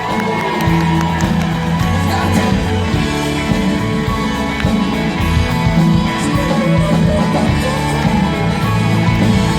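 Live rock band playing, with electric guitars, bass and drums.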